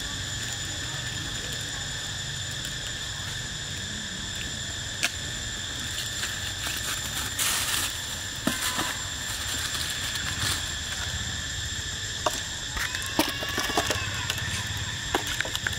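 Steady, high-pitched insect drone, with scattered clicks, crackles and rustles of monkeys scuffling in dry leaf litter; the clicks come thickest near the end.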